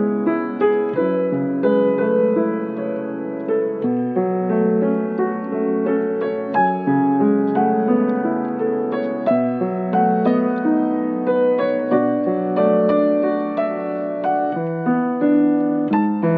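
Solo piano music: a gentle melody of struck notes over sustained chords.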